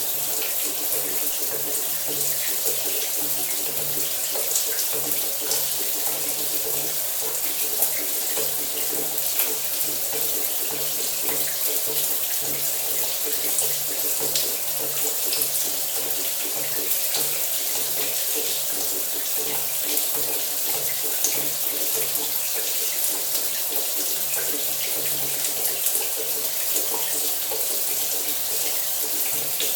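Shower running steadily, water spraying down with a fine spatter of drops.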